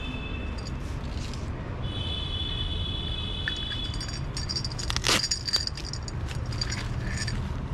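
Steel nunchaku in its packaging being handled: scattered clicks and light metallic clinks, the loudest a pair about five seconds in, over a steady low rumble.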